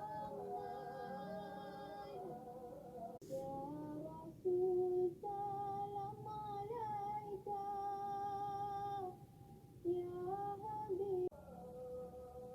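Pet lory (nuri) making long, held, singing-like vocal tones, several pitches at once that slide and waver, in stretches broken by short pauses, the loudest a short burst about four and a half seconds in.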